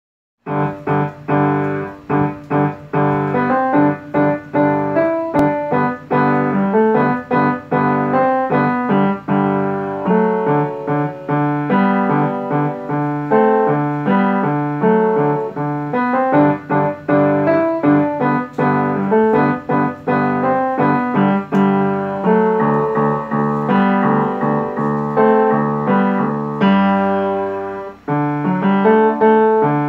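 Solo upright piano playing a piece from sheet music, notes starting about half a second in and running on in an even flow.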